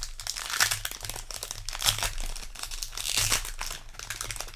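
Foil wrapper of a Magic: The Gathering collector booster pack crinkling as it is torn open and handled, a dense, irregular crackle.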